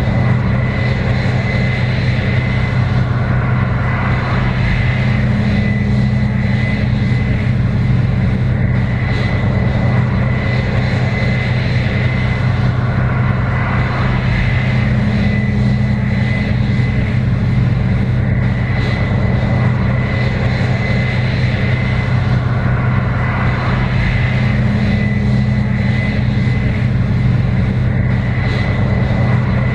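Case IH 7120 Axial-Flow combine running steadily while harvesting corn: a loud, even diesel-engine drone with a thin steady whine above it, swelling slightly about every ten seconds.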